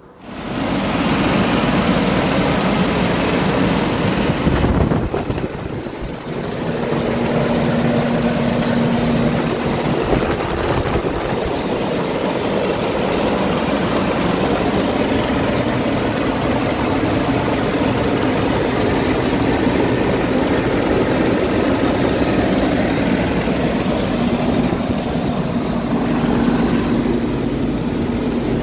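Cummins X15 diesel engine of a Kenworth W900L running steadily at idle, heard up close at the engine bay, with a high whine over the engine noise.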